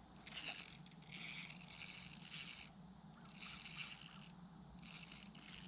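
A small ice-fishing spinning reel being cranked in five or six short bursts, each a steady high whir, with brief pauses between: a hooked bluegill is being reeled up to the hole.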